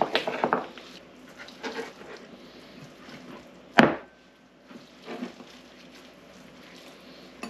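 Hands working ground beef in a bowl, handling and shaping it into patties with soft wet squishing and light knocks against the bowl. A single sharp click or knock a little under 4 s in.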